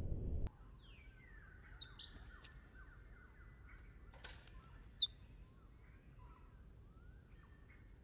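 Several songbirds chirping and calling, with short descending whistled notes and a sharp high chirp about five seconds in. A low rumble cuts off abruptly about half a second in, and there is a short rustle about four seconds in.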